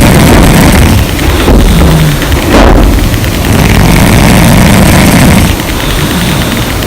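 Loud snoring from sleeping women: a harsh, low snore swelling and fading with the breaths, dropping quieter near the end.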